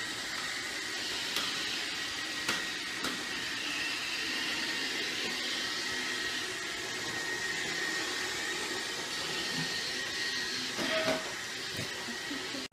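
Robot vacuum cleaner running with a steady whirring hiss and a thin high whine, with a few light clicks in the first few seconds.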